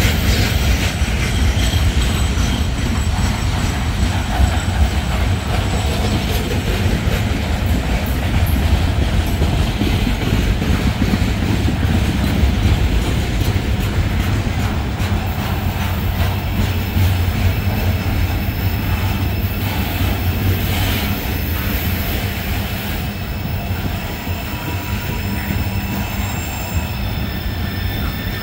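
Freight cars (flatcars loaded with waste containers) rolling past at close range: a steady rumble of steel wheels on the rails. Faint thin high squealing tones from the wheels come in near the end.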